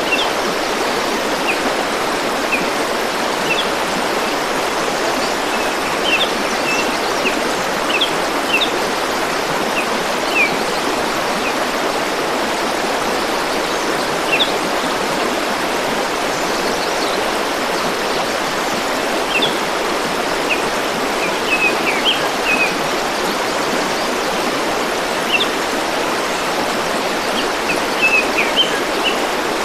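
A forest stream runs with a steady rush of water, and small birds give short, high chirps scattered over it, a few at a time.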